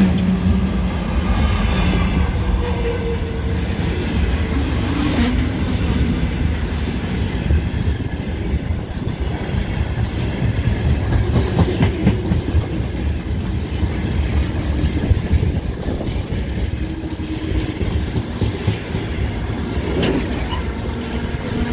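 Freight train wagons rolling past on the rails: a steady heavy rumble of wheels, with a few sharp clacks about 5, 12 and 20 seconds in.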